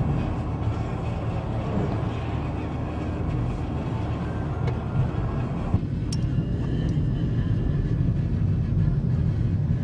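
Steady road and engine rumble heard inside a moving car. About six seconds in the sound changes abruptly and turns duller, the rumble going on underneath.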